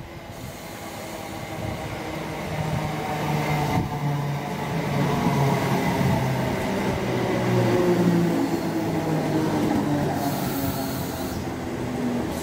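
Abellio Greater Anglia electric multiple unit running into the platform, growing louder as it comes alongside. Its motor whine falls slowly in pitch as it slows. A short hiss comes about ten seconds in.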